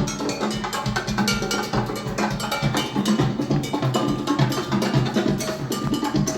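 Percussion-heavy music played from a vinyl record on a JVC L-F66 turntable fitted with an Audio-Technica AT3600 cartridge, with many quick, sharp strikes over a steady bass line.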